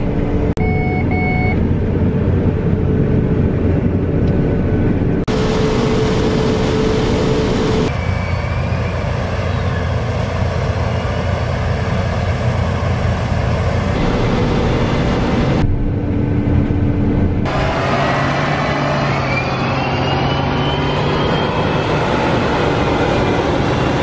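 Combine harvester engines and threshing machinery running steadily during wheat harvest, in short clips whose sound changes abruptly about five, eight, sixteen and seventeen seconds in. Near the end, a whining tone rises and falls over the engine hum.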